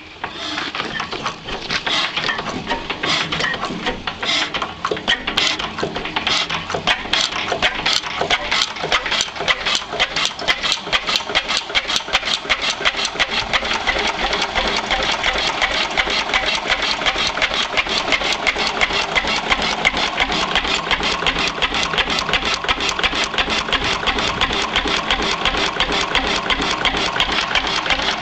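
1918 Lister P type 6 hp single-cylinder stationary engine starting up. Its firing strokes come slowly and unevenly for the first several seconds, then quicken into a fast, steady beat.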